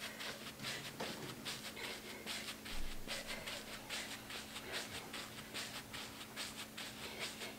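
Sneakers landing and scuffing on artificial turf in quick jumping jacks, a soft rhythmic scuff about three times a second, over a faint steady hum.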